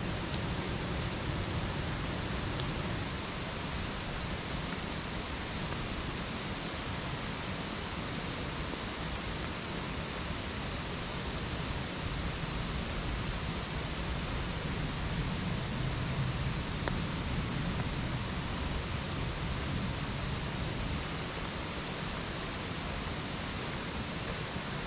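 Steady rushing outdoor noise in a forest campsite, with a few faint crackles from a wood campfire.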